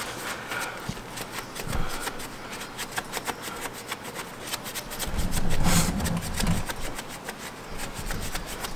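A wax applicator pad rubbing hand polish into a polished aluminum truck wheel around the lug nuts: a scratchy scrubbing made of many short, quick strokes. About five seconds in, a low rumble lasts a second or so.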